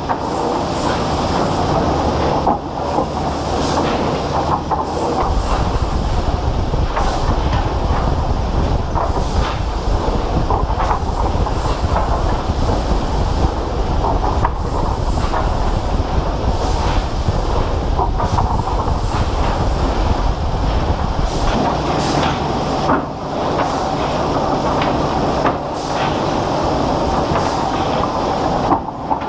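Heavy industrial machinery running continuously with a loud mechanical rattle and clatter. A deep rumble comes in after about five seconds and eases off a few seconds before the end.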